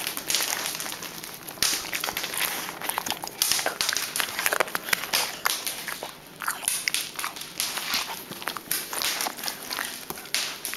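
A Lab-beagle dog heard up close through a camera on her collar, chewing and crunching a treat found on the floor, then walking across a tile floor with many short clicks of claws and steps.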